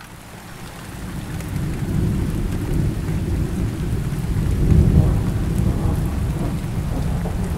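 Thunderstorm: steady rain with low rumbling thunder, fading in over the first couple of seconds and loudest about five seconds in.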